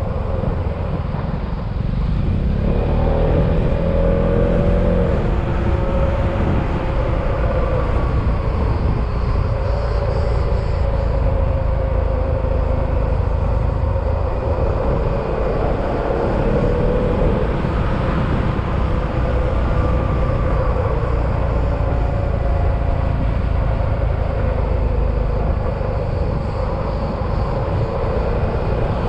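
Yamaha XMAX scooter's engine running steadily at road speed while riding, its note rising and falling a little, mixed with road and wind noise.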